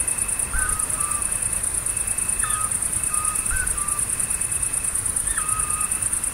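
Nature-sound backing ambience: a steady, fast-pulsing insect trill high up, with short whistled bird chirps, some dropping in pitch then holding, recurring about every second over it.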